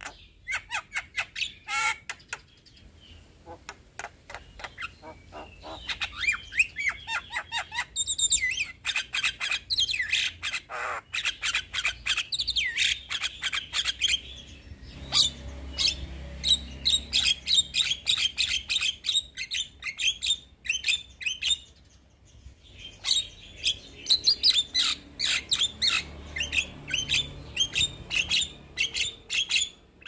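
Young Javan myna singing hard, a long rapid run of short chattering, squeaky and whistled notes. It pauses briefly twice, a few seconds in and again about two-thirds of the way through.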